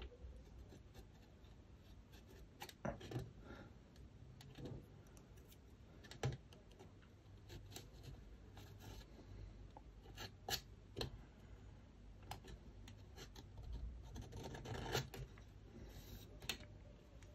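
Single-edge razor blade scraping and cutting at a thin plastic model part, with faint, irregular scratches and small clicks from the blade and handling.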